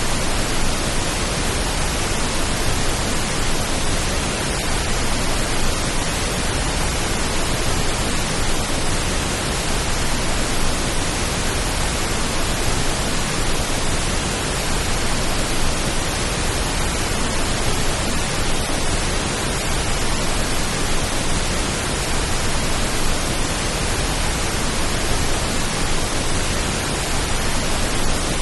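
Steady pink noise: an even, unbroken hiss with no separate drops or events, made as a rain-like calming sound.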